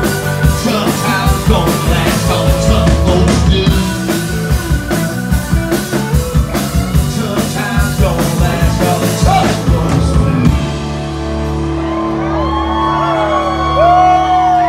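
Live country-rock band playing the closing bars of a song: drums, strummed acoustic guitar, electric guitar and keyboard. The drums stop about ten seconds in, leaving a held chord ringing while audience members whoop and yell.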